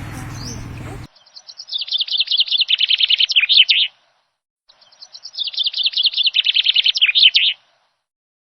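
Birdsong played twice, each a rapid chattering, twittering trill lasting about three seconds, the two identical and set against dead silence like an added sound clip. Just before the first, the background noise of the scene cuts off suddenly about a second in.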